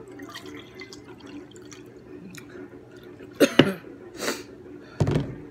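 Juice poured from a large plastic jug into a drinking glass, a liquid pouring and dripping sound. Sharp knocks and handling noises from the jug and glass come about three and a half seconds in and again near the end.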